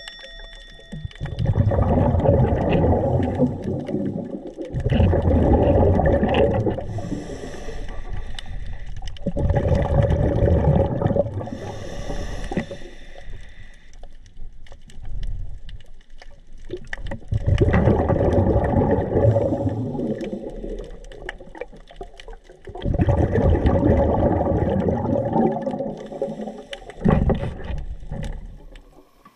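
Scuba diver breathing through a regulator underwater: exhaled bubbles gurgle out in long bursts every few seconds, with quieter inhalations between.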